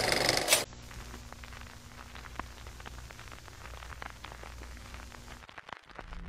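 A film projector's rapid clatter cuts off about half a second in. Faint hiss with scattered crackles and pops follows, the sound of old film running through.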